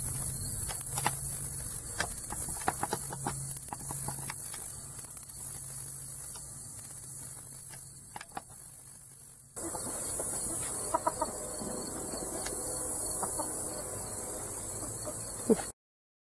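Chickens clucking, a few short calls over a steady background hiss; the sound cuts off suddenly near the end.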